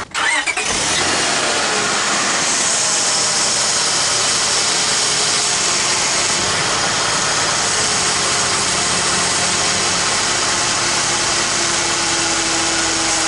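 1999 Acura CL 3.0's V6 idling steadily with its power-steering pump whining while the steering is turned to work air out of the system. The whine is the pump noise blamed on air drawn in past hardened pump O-rings, still there with new O-rings fitted, which the owner thinks may be the lower seal or a failing pump.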